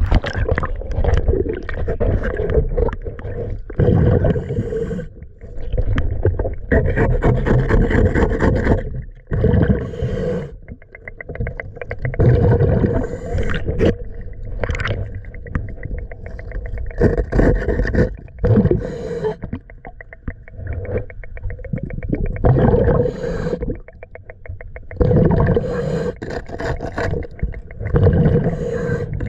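Diver breathing underwater through a demand regulator: loud bursts of exhaled bubbles rumbling and gurgling every few seconds, with quieter stretches between breaths.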